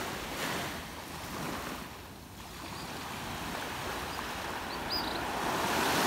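Small sea waves washing up on a sandy beach, a steady surf hiss that eases about two seconds in and swells again towards the end. A faint short high chirp comes near the end.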